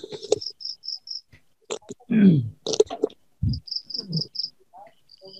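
Insect chirping, typical of a cricket: two short runs of rapid high chirps at about five a second, the first about half a second in and the second about four seconds in.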